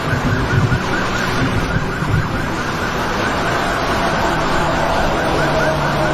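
A siren sounding over a loud, steady rushing noise.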